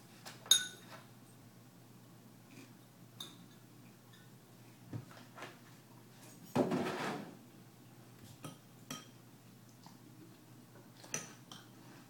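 A spoon clinking against a ceramic cereal bowl several times, the sharpest clink with a short ringing tone about half a second in. A brief rustling, scraping noise about seven seconds in.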